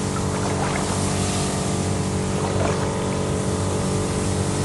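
Small engine of a motorized crop sprayer running steadily at constant speed, with a steady hiss over it as the spray mist is blown across the rice.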